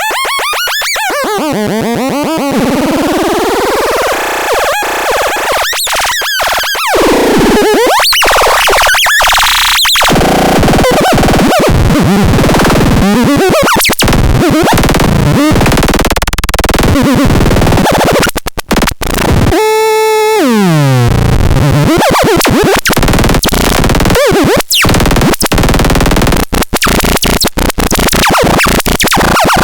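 Lebkotron synthesizer making harsh, glitchy electronic noise: warbling and gliding pitches chopped by rapid clicks and sudden cut-outs. About two-thirds of the way through, a buzzing tone falls steeply in pitch.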